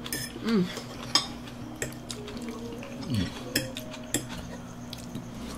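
Metal forks clinking and scraping against a metal baking tray of food, a few sharp clinks spread through. A short vocal sound is heard twice.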